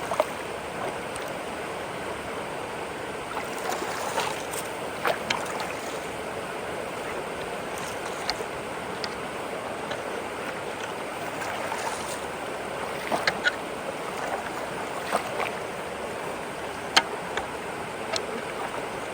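Steady rush of creek water flowing through a partly clogged road culvert, with a few short sharp knocks scattered through it, the loudest about 17 seconds in.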